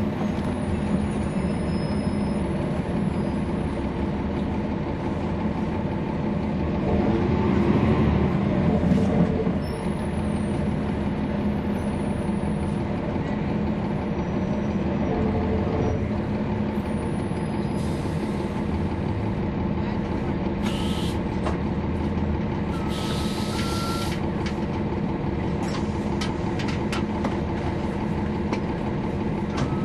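Cummins ISL9 straight-six diesel engine of a 2011 NABI 40-SFW transit bus, heard from on board as the bus runs. The engine note swells about a quarter of the way in, then settles back to a steady drone. Past the middle come a few short bursts of hiss.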